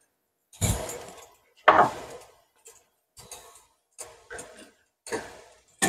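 A metal ladle clinking and knocking against a small saucepan as eggs are lowered into the water: about eight separate knocks of uneven loudness, the two loudest about half a second and a second and three quarters in.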